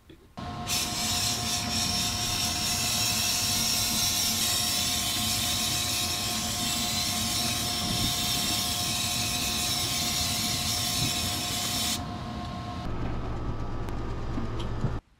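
Powder coating gun spraying, a steady hiss of compressed air with two steady whining tones under it. The hiss stops about twelve seconds in, leaving a lower hum that cuts off suddenly near the end.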